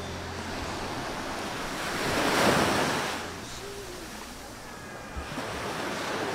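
Surf breaking and washing up onto a sandy beach: a wave surges in, loudest about two and a half seconds in, then the wash draws back to a steady hiss.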